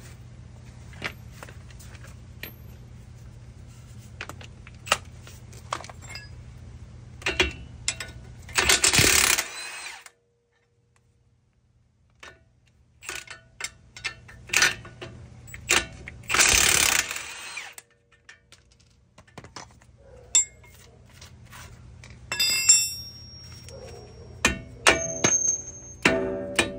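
Metal clinks and knocks of hand tools against brake caliper and hub parts, with two bursts about a second long of a cordless power tool running on a bolt. Plucked-string music comes in near the end.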